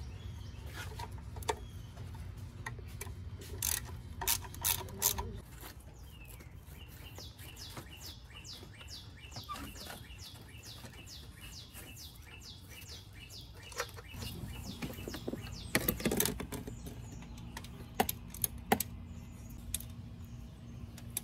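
Socket ratchet wrench clicking as bolts are turned out, with a run of quick even clicks in the middle and scattered metallic clinks of the tool on the bolts.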